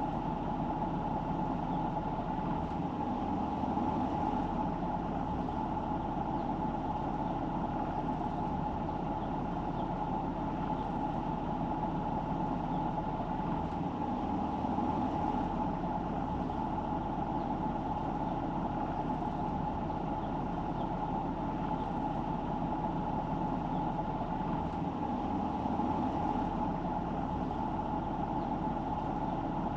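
A car driving, its engine and tyre noise making a steady hum and rush with no distinct events.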